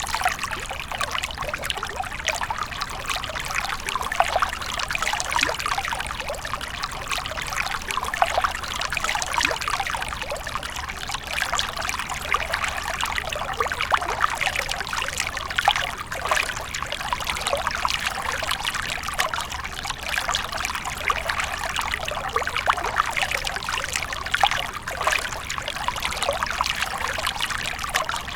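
Small brook babbling and splashing over stones, a steady run of many small quick splashes and trickles without pause.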